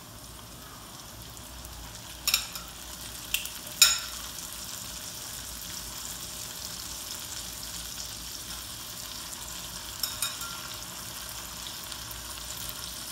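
Raw chicken pieces sizzling as they are laid into a pan of hot butter with garlic, onion and ginger; the sizzle grows fuller about two seconds in as more pieces go in. Sharp clicks of the tongs sound a few times about two to four seconds in and twice around ten seconds in.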